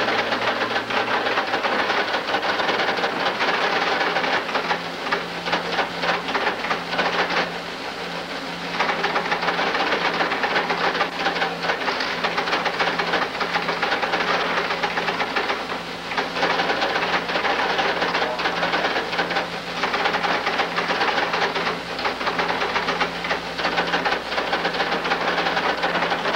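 Compugraphic typesetting machine running, a rapid, continuous mechanical clatter over a steady hum, briefly quieter about eight seconds in.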